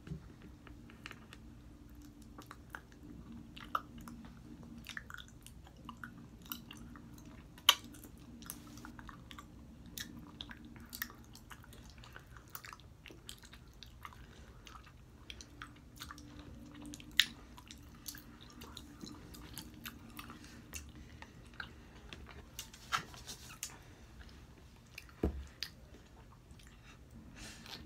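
Gummy bears being chewed with open-mouthed smacking: a steady scatter of short, wet mouth clicks and smacks, with a few sharper, louder clicks.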